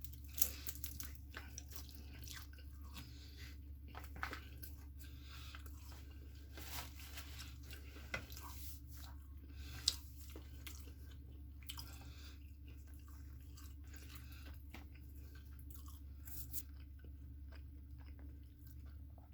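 A person chewing food close to the microphone, with irregular crunchy bites and small clicks over a faint steady low hum.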